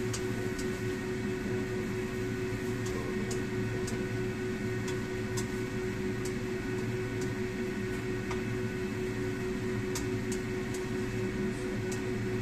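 A steady electric motor hum runs throughout. Over it come sparse light ticks of a spatula knocking against a frying pan as food is stir-fried.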